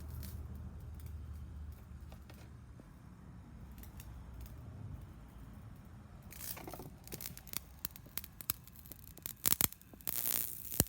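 Electric arc between carbon electrodes crackling and snapping irregularly from about six seconds in, over a low steady electrical hum, with the sharpest snaps near the end.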